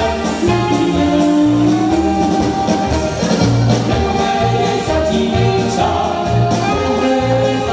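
Live dance band playing a Czech folk song: a woman and a man singing together over accordion and a steady bass beat.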